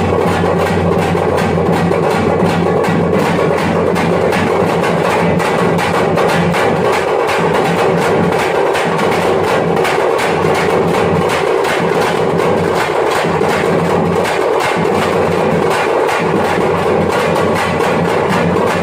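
Thappattam (parai) frame drums beaten with sticks in a fast, steady rhythm.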